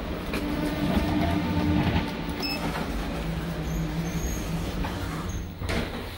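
Otis Gen2 elevator running: a steady machine hum over a low rumble, its tone dropping to a lower pitch about two seconds in.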